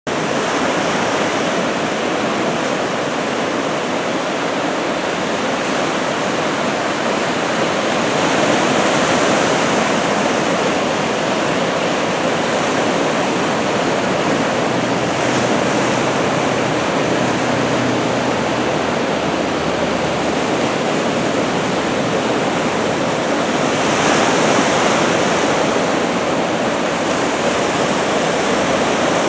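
Ocean surf breaking steadily, a continuous wash of waves. It is swell raised by approaching typhoons, and it grows louder about a third of the way in and again near the end.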